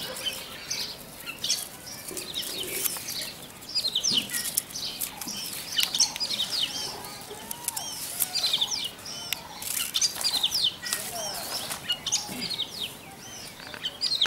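Small birds chirping, many short high calls following one another in quick succession.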